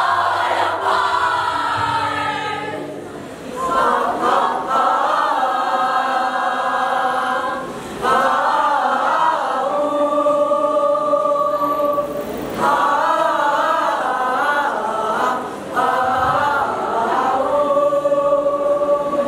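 Mixed choir of young men and women singing in phrases a few seconds long with brief breaks between them, with long held notes near the middle and at the end.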